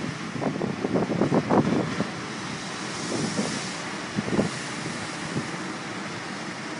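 Wind buffeting the microphone over a steady wash of rough sea breaking on a breakwater; the gusts are strongest in the first two seconds, then ease to a steady hiss.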